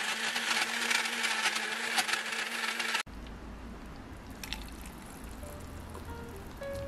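Personal blender running, blending a smoothie with a steady hum under the whirring, then cutting off abruptly about three seconds in. After that, the thick smoothie is poured from the blender jar into a mug, much quieter.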